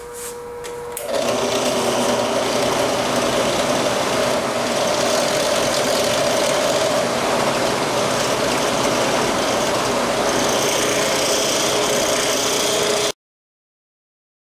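Bench drill press running, its bit drilling out the handle pins of an old carbon-steel chef's knife: a steady mechanical whirr with a hum that gets much louder about a second in. It cuts off abruptly to dead silence near the end.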